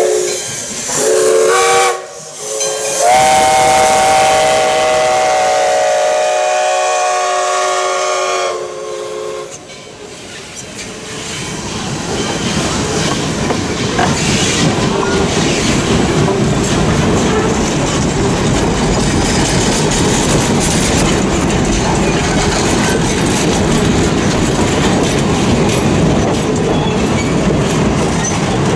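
Steam locomotive No. 58's chime whistle blowing at a road crossing: the end of a blast, then a short one and a long one, the close of a grade-crossing whistle signal. From about eleven seconds in, the passenger coaches roll past with a steady rumble and wheels clicking over the rail joints.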